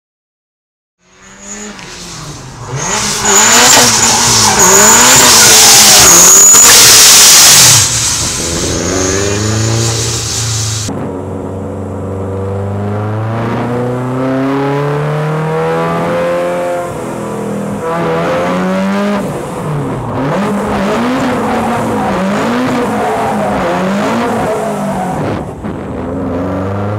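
Supercharged HKS GT86's flat-four engine revving up and down as the car drifts, with the tyres squealing loudly for several seconds. From about a third of the way in, the engine is heard from inside the cabin, revs rising and falling through the corners.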